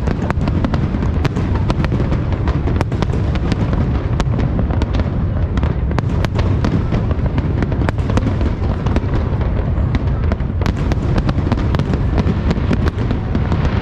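Fireworks going off continuously: a dense run of many sharp crackling pops, several each second, over a steady low rumble of booms.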